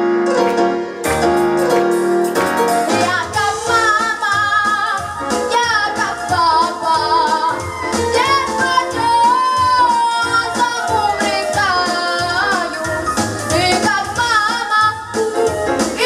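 A young female vocalist singing a jazz-style song into a microphone over an amplified backing track with piano and a steady bass beat. The first few seconds are instrumental; her voice comes in about three seconds in, with vibrato on the held notes.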